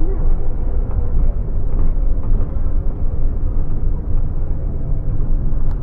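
Scania OmniLink single-deck bus's diesel engine and road noise heard from inside the cabin while the bus is moving: a steady low rumble with a faint steady engine hum and light rattles.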